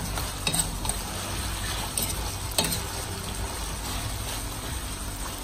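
Strips of beef tenderloin sizzling in olive oil and garlic in a stainless-steel pan while being stirred, with a steady frying hiss. The metal spoon clinks and scrapes against the pan several times in the first three seconds.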